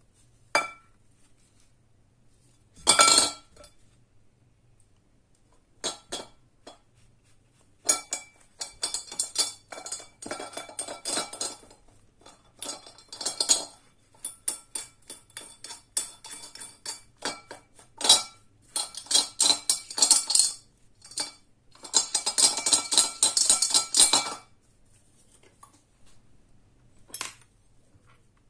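Brass faucet parts clinking and knocking against a glass bowl while being scrubbed with a bristle brush. A few sharp clinks, then long stretches of rapid scrubbing and rattling, and one last clink near the end.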